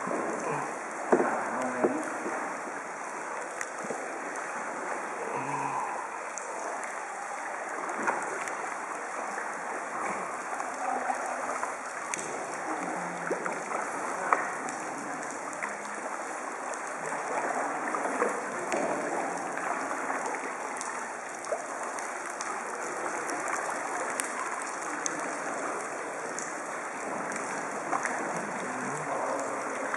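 Plastic kayak paddles dipping into and splashing the water, over a steady wash of lapping water, with occasional sharper splashes or knocks.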